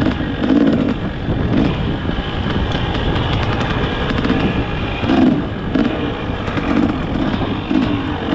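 Dirt bike engine running with the throttle rising and falling in uneven swells, under heavy wind noise on the microphone.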